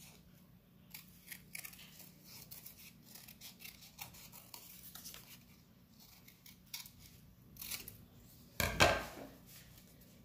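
Scissors cutting through green construction paper in a run of short, crisp snips. Near the end there is a single louder thump.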